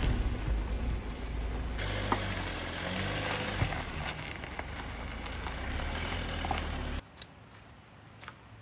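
Jeep Wrangler driving: steady engine and road rumble with tyre noise, which cuts off about seven seconds in to a quiet outdoor background.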